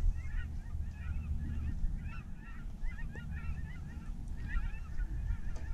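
A large flock of geese honking, many short calls overlapping without a break, over a steady low wind rumble on the microphone.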